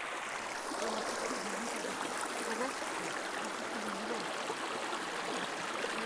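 Shallow stream running over rounded stones, a steady rush of water with small gurgles.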